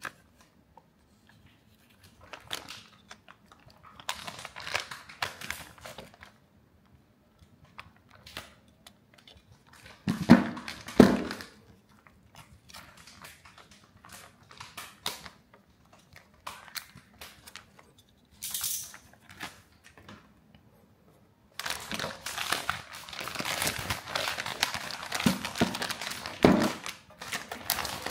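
Plastic anti-static bags rustling and being slit open with a utility knife, with a couple of loud knocks about ten seconds in. Near the end the bag crinkles steadily as it is pulled open around the power supply board.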